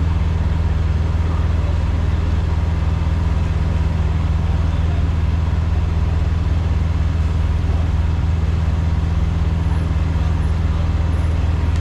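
Peterbilt semi truck's diesel engine running at a steady low drone, with no change in engine speed.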